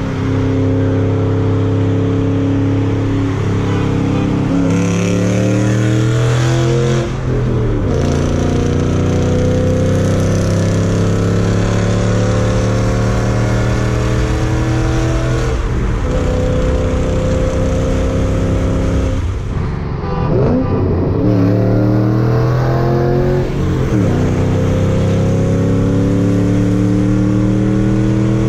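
Car engine at full throttle, its pitch climbing through each gear and dropping back at several upshifts.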